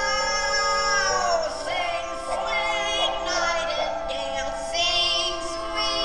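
A woman's singing voice in a show-tune soundtrack, holding long wavering notes with several vocal lines layered over the music.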